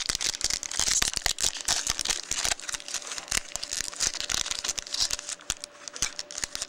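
Foil wrapper of a Bowman Chrome baseball card pack crinkling and tearing as it is handled and opened: a dense run of crackles that thins out toward the end.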